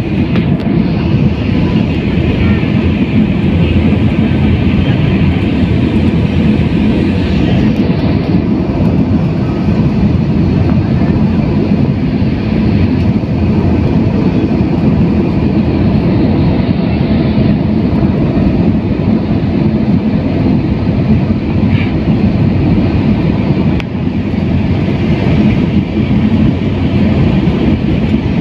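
Jet airliner cabin noise heard from a window seat near the wing: a steady low rumble of engine and airflow with a hiss above it, during the low descent over the city.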